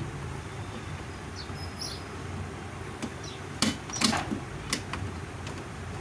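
A few sharp plastic clicks and knocks about halfway through, as a top-load washing machine's drain valve and rubber bellows seal are worked loose by hand, over a low steady hum.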